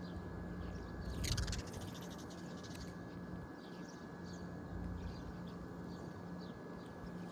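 Small birds chirping in short, quick downward notes over an outdoor background, with a brief loud noisy burst about a second in and a faint steady hum underneath.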